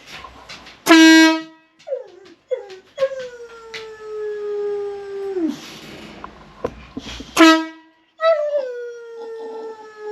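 Two short, very loud blasts of a MotoHorn 2.0 motorcycle horn, about a second in and again after about seven seconds. Each blast sets a dog howling along in a long, slowly falling howl.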